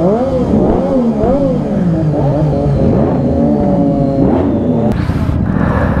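Several motorcycle engines revving, quick throttle blips rising and falling in pitch and overlapping one another. About five seconds in, the sound changes abruptly to a steadier low engine rumble.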